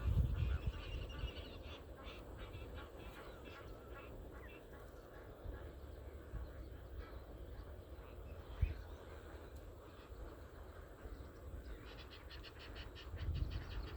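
A large flock of flamingos calling: a faint, continuous chatter of many overlapping short calls, with a low rumble in the first second.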